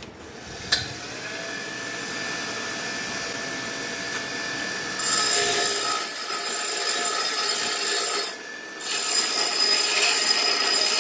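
Bench grinder switched on with a click about a second in, its motor spinning up to a steady whine. From about five seconds in a piece of steel is pressed against the grinding wheel: loud grinding, broken by a short pause a little after eight seconds.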